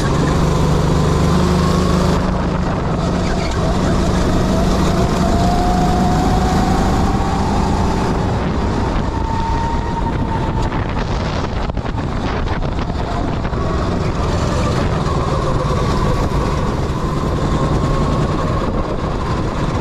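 Sodikart go-kart engine running under way, its pitch slowly rising and falling as the kart accelerates and slows, over a steady rush of noise.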